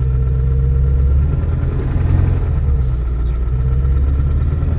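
2001 Ford Excursion's 7.3-litre Power Stroke turbo-diesel V8 running steadily, still cold shortly after a cold start without the block heater plugged in.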